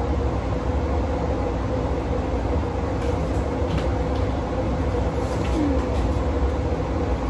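Steady low rumble of background noise with a constant hum, and a few faint clicks about three and five seconds in.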